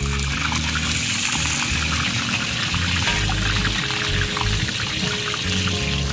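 Hot oil sizzling in a large wok as sliced onions are tipped in, under background music.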